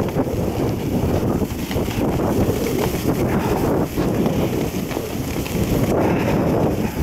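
Wind buffeting the microphone of a camera worn by a skier moving downhill fast: a loud, uneven rumbling rush with no let-up.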